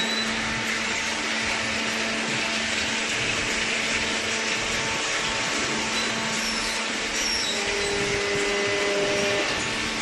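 Steady machinery drone: a constant motor hum under a broad rushing noise, with a second steady tone joining briefly near the end.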